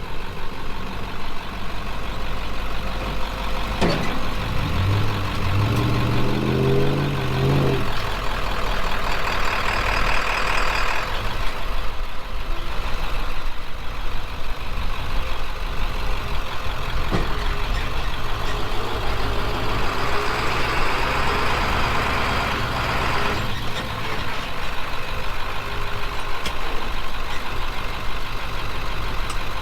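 Heavy truck engine running, with a rising rev about five to eight seconds in and stretches of hiss around ten and twenty-one seconds in.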